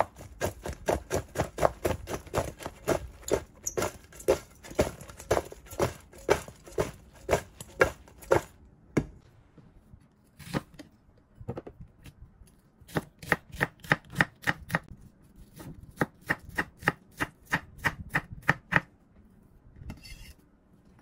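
Eggplant slices shaken in a stainless steel bowl, a quick rhythmic rattling and thudding for about the first eight seconds. Then a kitchen knife chops onion on a wooden cutting board, about four quick chops a second, stopping shortly before the end.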